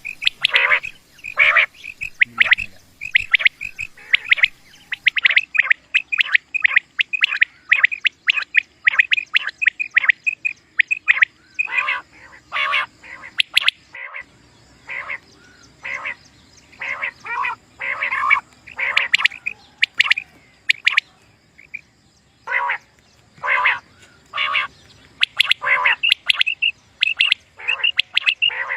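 Common quail calling over and over: short, sharp notes in quick clusters, with a brief lull about two thirds of the way through.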